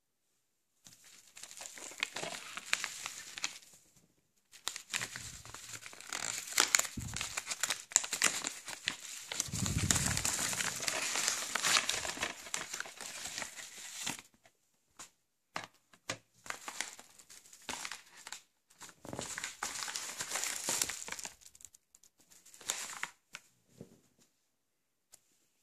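Padded paper mailer crinkling and crumpling as it is opened and a DVD is pulled out. The crinkling comes in long bouts for the first fourteen seconds or so, then gives way to scattered light taps and two shorter bouts of crinkling.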